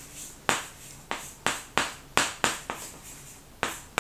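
Chalk on a chalkboard, written in quick strokes: a series of about ten sharp taps and short scrapes, each stroke dying away fast.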